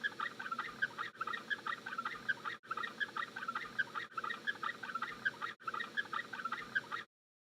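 Chickens clucking: many short, irregular calls several times a second, broken by brief silent gaps about every second and a half.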